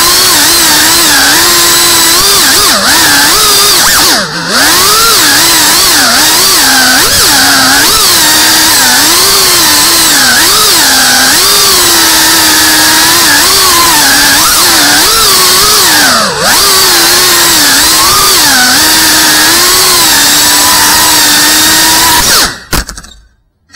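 FPV quadcopter's electric motors and propellers whining, the pitch rising and falling constantly with the throttle. It dips briefly twice and cuts out for about a second near the end.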